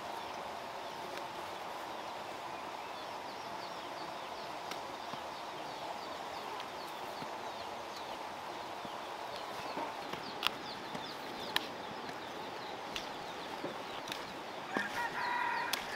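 Chickens clucking over a steady chorus of many quick high chirps, with a few sharp clicks around two-thirds of the way in and a louder call near the end.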